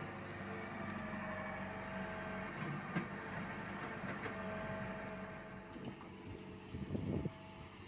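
Komatsu PC75US mini excavator's diesel engine running under work as the arm digs and swings, with a whining tone that comes and goes. A sharp knock about three seconds in and a few low thumps near the end.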